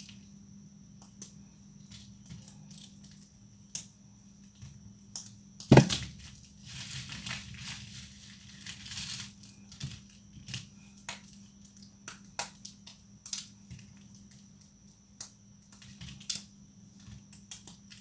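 Dried leftover soap plates breaking: scattered small cracks, one loud snap about six seconds in, then a few seconds of crumbling crackle before the small cracks resume. A faint steady hum runs underneath.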